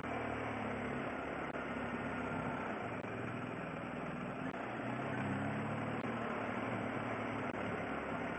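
Motorcycle engine running under way, its low note shifting a little in pitch, over a steady hiss of wind and road noise.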